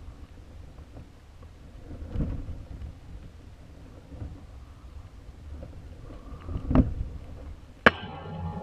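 Low rumble of air buffeting a high-altitude balloon's camera payload as it swings, with a dull knock about two seconds in, a louder knock near seven seconds, and a sharp click followed by a brief rattle near the end.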